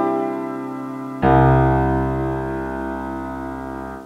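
Piano-voiced digital keyboard: earlier notes fading, then about a second in a low final chord with deep bass is struck and held, ringing down until the keys are released near the end, where the sound cuts off.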